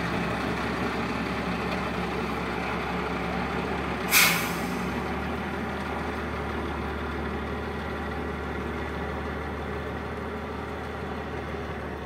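Heavy tipper truck's diesel engine running steadily as it drives slowly on gravel, with one sharp air-brake hiss about four seconds in.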